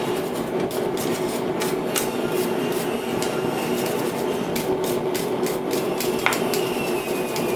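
Gas forge burner running with a steady rushing noise, under irregular sharp strokes of metal on metal as the freshly forged spoon is cleaned up.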